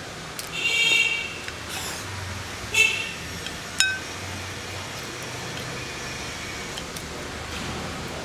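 Two short, high honks with a ringing, many-toned quality: the first about half a second in and lasting most of a second, the second shorter, near three seconds in, over a steady low hum. A single sharp click near four seconds in.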